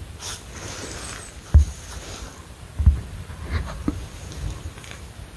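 Handling noise from a phone held to a spotting optic: a few dull low thumps, the loudest about a second and a half in and again near three seconds, over a faint hiss.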